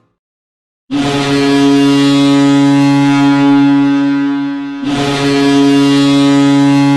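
Belfast Giants ice hockey goal horn sounding two long, steady blasts: the first starts about a second in and holds for about four seconds, and the second follows straight after.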